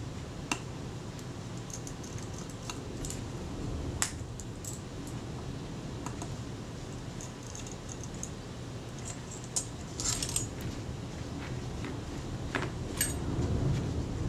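Scattered small metallic clicks and taps of fine hand tools and screws against the Kodak Retina IIIC camera's metal base casting, with a short cluster of rattling clicks about ten seconds in and a few more near the end.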